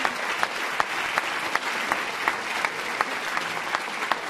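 Audience applauding, with sharper claps standing out at a steady beat of nearly three a second.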